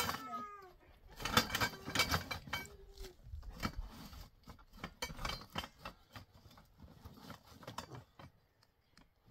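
Tent poles clattering and knocking against each other as they are sorted by hand in a woven plastic sack: irregular clicks and rattles that thin out after about six seconds.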